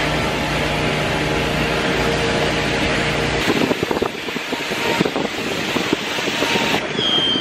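Pressure washer running with a steady drone, cutting off abruptly about three and a half seconds in; after that, scattered knocks and clatter.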